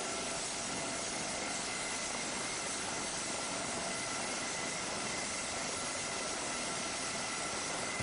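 Coast Guard HH-65A Dolphin helicopter running with its rotor turning: a steady rushing noise from its twin turboshaft engines and rotor, with a faint high whine.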